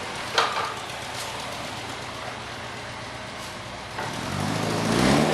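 A Volkswagen car's engine arriving: its note comes in about four seconds in and rises as the car pulls up. A single sharp knock sounds about half a second in.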